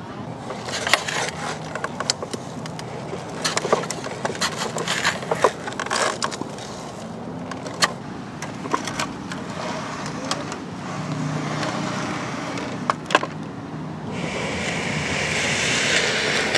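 Steel toy construction trucks being handled and pushed on the ground: scattered clicks, clacks and scraping of metal parts. From about 14 seconds in, a steady rushing noise rises and grows louder.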